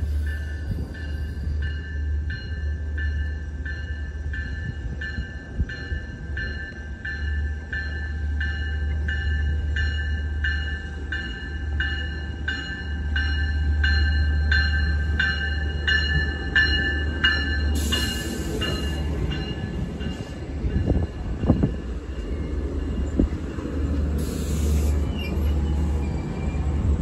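Long Island Rail Road diesel push-pull train with bilevel cars pulling into a station. A bell clangs steadily, about one and a half strokes a second, as the cab car approaches. From about two-thirds in the cars roll past close by with a louder rumble, some wheel clatter and a brief hiss.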